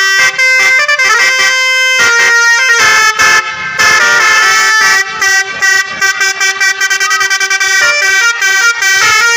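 Basuri telolet bus horns, a set of musical air horns, playing a loud multi-note melody. Held notes give way about halfway through to a rapid run of short notes.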